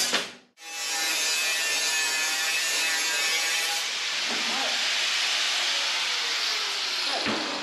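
Angle grinder running steadily as it grinds the edge of an aluminium sheet fan shroud down to the marked line. The grinding starts about half a second in and stops shortly before the end.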